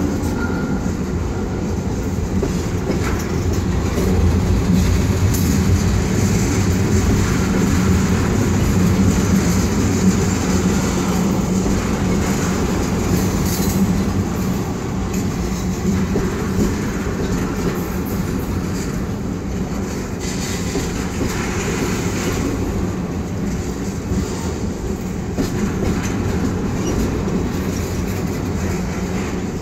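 Freight train of loaded ethanol tank cars rolling slowly past on a line in poor repair: a steady rumble of steel wheels on rail with occasional clacks.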